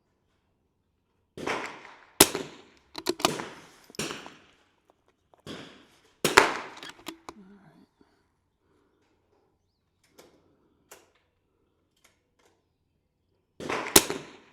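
.22 LR rimfire rifle shots from a firing line: a string of sharp cracks at irregular intervals, bunched in the first seven seconds, with the sharpest at about 2 s, 6 s and 14 s.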